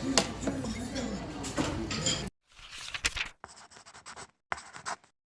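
Voices talking at a meal table, with a sharp clink of tableware about a quarter second in. The sound cuts off abruptly after about two seconds, and a few short, chopped scratching and rubbing noises follow.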